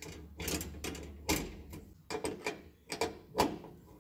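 Steel combination wrench clicking and clinking on the brake line flare nuts of an adjustable brake bias valve as the fittings are tightened: a string of about six sharp metallic clicks, the loudest about a second and a half in and again near the end.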